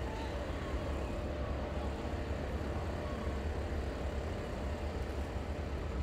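Steady low rumble of background noise, with no single event standing out.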